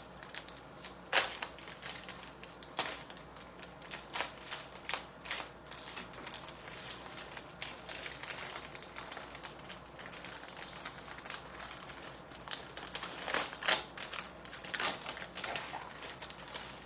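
Plastic packaging crinkling and rustling on and off as frozen fresh pasta is pulled apart by hand, with sharper crackles about a second in and again near the end.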